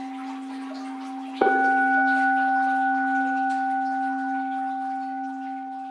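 Orin, a Buddhist standing bell, struck once about a second and a half in and ringing on in a long, slowly fading tone over the ring of an earlier strike, with a soft wash of water underneath.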